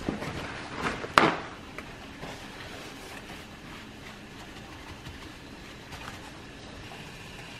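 Paper towel rustling and crinkling as it is folded over strips of cooked bacon and pressed down to blot the grease, loudest about a second in, over a steady background hiss.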